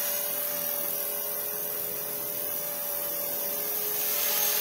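Electric radio-controlled model helicopter hovering low: a steady whine from its motor and spinning rotors.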